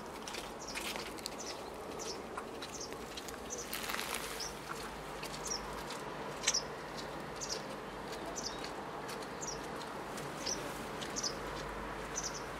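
Small birds chirping outside: short high chirps, some falling in pitch, repeating about once or twice a second over faint steady background noise. A few soft knocks, the clearest about six and a half seconds in.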